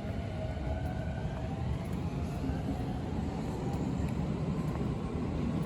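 Keio Line electric train running, a steady low rumble with a faint motor whine that rises slowly in pitch as it picks up speed.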